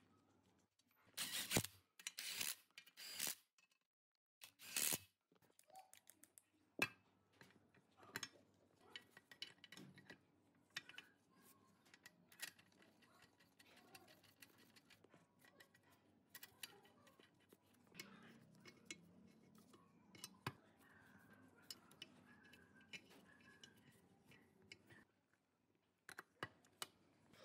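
Sharp metallic clicks and scrapes of compressor parts being handled and fitted into an air compressor crankcase: four louder ones in the first five seconds, then scattered light clinks and taps.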